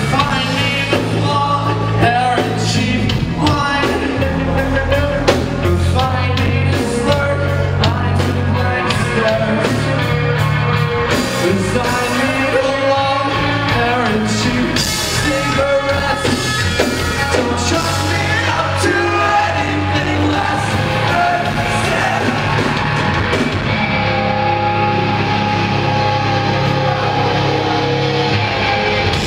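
Rock band playing live, loud and continuous, with sung vocals over full-band drums and instruments, heard through a camera in the audience.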